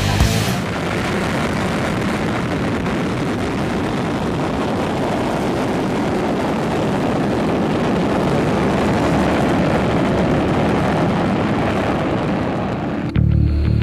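B-1B Lancer's four General Electric F101 afterburning turbofans at high power during the takeoff roll: a steady, loud jet rumble and hiss that swells slightly midway. Music cuts in sharply near the end.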